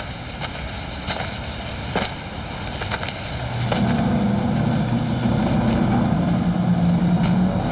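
Footsteps on pavement, a few separate steps, joined about four seconds in by a low, steady drone that shifts pitch in steps.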